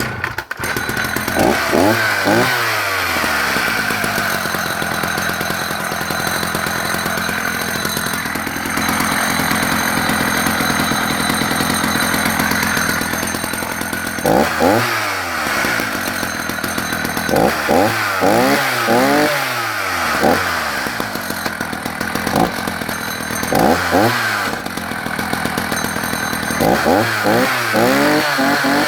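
Vintage Husqvarna 380S two-stroke chainsaw running just after a cold start with the choke turned off: it idles steadily, revving up and back down in a short throttle blip about a second and a half in and in several more blips through the second half.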